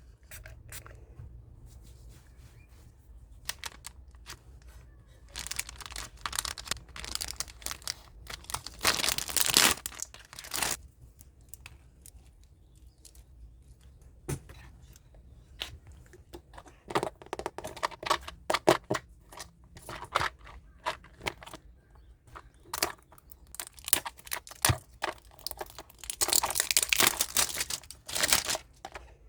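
Plastic packaging being handled, torn open and crinkled, with many scattered clicks and taps; the rustling grows longer and louder about a third of the way in and again near the end.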